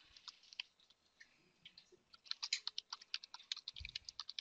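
Computer keyboard typing: a few keystrokes at first, a pause of about a second and a half, then a quick, dense run of keystrokes through the second half.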